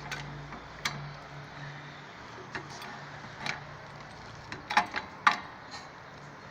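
A car jack being set under the car and raised: scattered, irregular metal clicks and clanks, with a cluster of sharper knocks near the end.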